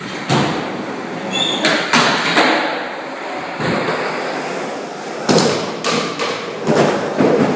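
Skateboard wheels rolling on a smooth concrete floor, broken by several sharp clacks and thuds of the board hitting the ground.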